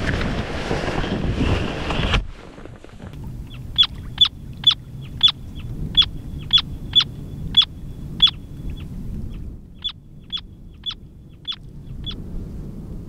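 Wind noise and rustling for about the first two seconds, then, after a sudden cut, a semipalmated plover calling: a run of short, sharp high calls about two a second, with a short pause midway.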